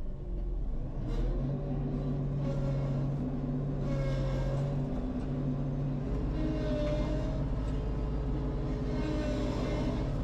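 New Holland Boomer 55 compact tractor's diesel engine running, heard from inside the cab, while the front loader is worked with the joystick; higher tones over the engine rise and fall in pitch several times as the loader moves.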